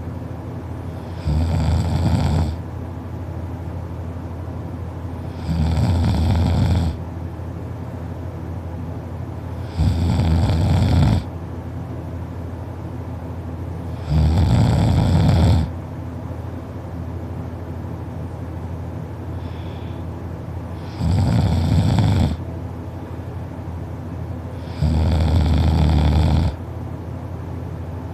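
A sleeping person snoring loudly: six long rasping snores, about one every four seconds, with a longer pause between the fourth and fifth. A steady low hum runs underneath.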